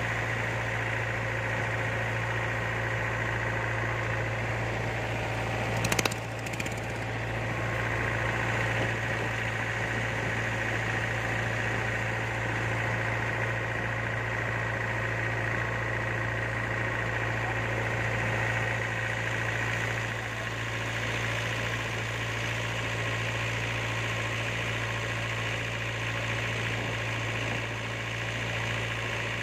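Motorboat engine running steadily with a constant low drone as the boat travels along the water. A brief sharp knock comes about six seconds in.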